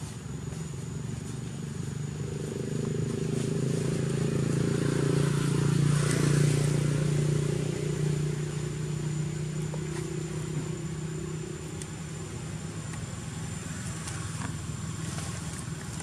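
A motor engine hum that grows louder to a peak about six seconds in, then fades away, like a vehicle passing by.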